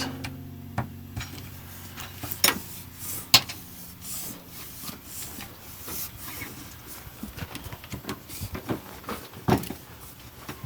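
Handling noises of an air line being routed up into a truck cab: irregular rubbing and rustling with a few sharp knocks and clicks, over a faint low steady hum.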